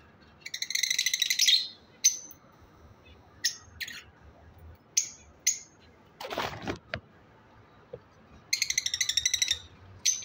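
Albino lovebirds chirping: two bursts of rapid, high chattering, one near the start and one near the end, with short sharp single calls between them. About six seconds in comes a brief noisy swish.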